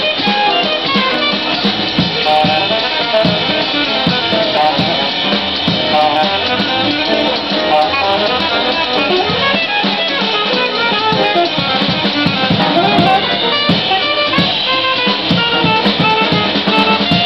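Small jazz combo playing live: a saxophone plays a moving melodic line over walking upright bass and drum kit.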